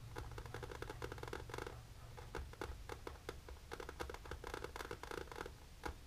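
Long polished fingernails tapping and scratching on a leather manicure cushion: rapid clicks in quick flurries with short pauses between them.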